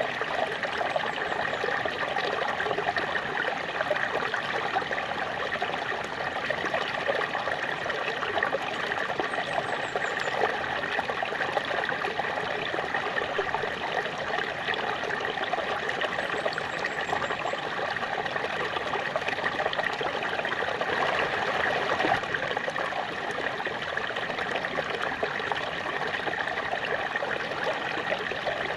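Small waterfall splashing and flowing steadily, a constant rushing with a lighter trickle on top.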